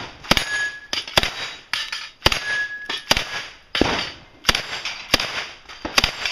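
Submachine gun firing about a dozen single shots, roughly one every half-second, at steel targets, with a short ringing tone from a struck steel plate after two of the shots.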